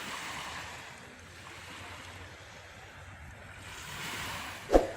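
Sea waves washing onto a shore, swelling at the start and again about four seconds in. A brief sharp knock near the end is the loudest sound.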